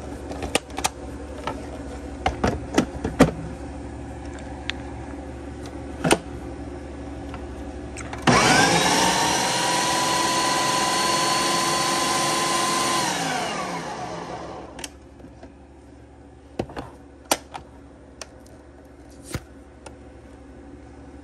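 Food processor motor chopping cooked corned beef. It starts abruptly about eight seconds in, runs steadily for about five seconds, then winds down with falling pitch after it is switched off. Sharp clicks and knocks come before it, and a few more after.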